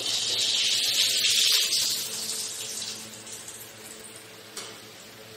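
Gulab jamun balls deep-frying in hot oil in a steel kadai, the oil sizzling loudly for about two seconds as a wire skimmer stirs them, then settling to a lower sizzle. A single light click comes near the end.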